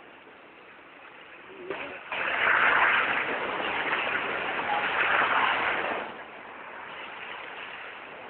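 City street noise: a steady, noisy rush that swells about two seconds in and eases off around six seconds.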